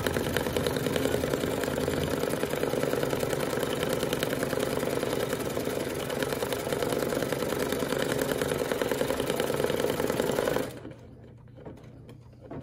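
Brother Luminaire Innov-is XP1 embroidery machine stitching out the first section of a design, running steadily at speed, then stopping abruptly about ten and a half seconds in as that section is finished.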